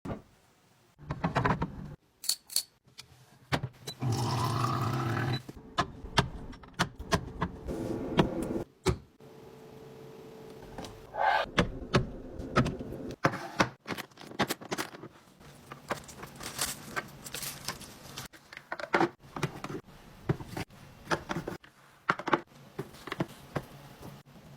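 Containers, jars and packaging being handled and set down while a fridge is cleaned and restocked: irregular clicks, knocks, rattles and scrapes, with a longer stretch of noise about four seconds in.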